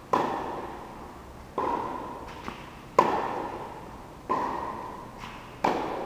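A tennis ball struck by racquets in a rally, five sharp hits about a second and a half apart, each ringing on in the echo of an indoor court, with faint ball bounces between.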